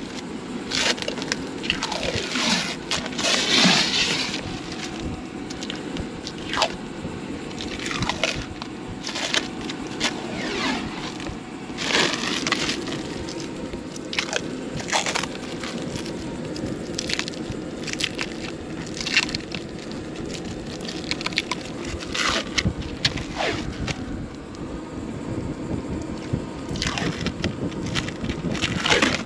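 Plastic wrapping being peeled off and crumpled, an irregular run of crackles and crinkles.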